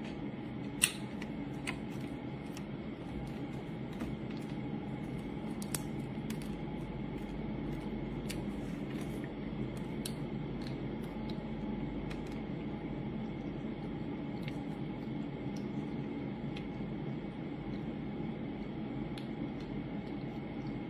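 Irregular small clicks and crackles of shells being broken up by hand and eaten at a table, the sharpest about a second in, over a steady low hum.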